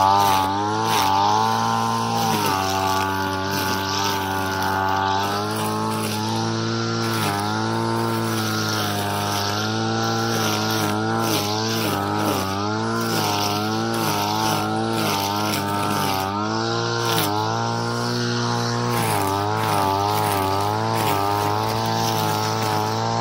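Engine of a handheld brush cutter running hard while mowing grass. Its pitch sags and recovers over and over as the blade takes the load of the grass.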